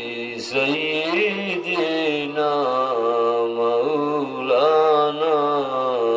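A man's voice chanting in a slow, melodic style into a microphone, holding long notes with wavering rises and falls, in phrases with brief breaks between them.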